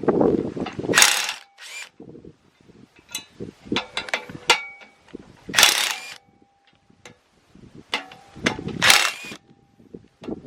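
Metal parts and hand tools being worked on a piece of farm equipment: scattered clicks and clanks, with three louder scraping or grinding bursts, about a second, six seconds and nine seconds in.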